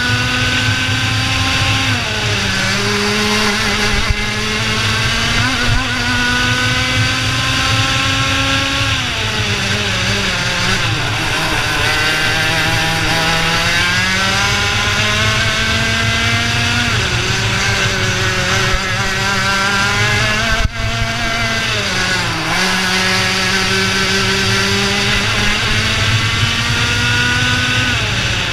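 IAME Leopard 125 cc two-stroke kart engine at race pace, heard from the driver's helmet camera. Its pitch climbs steadily along each straight, then drops sharply as the driver lifts and brakes into the corners, about four times.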